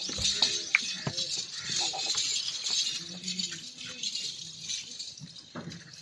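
Goat-shed ambience: a steady high-pitched chirping and jingling with scattered sharp knocks and a few short low calls.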